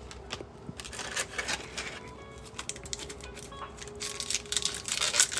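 Trading cards and a foil card-pack wrapper being handled: light clicks and rustling, then crinkling from about four seconds in as the next pack is opened.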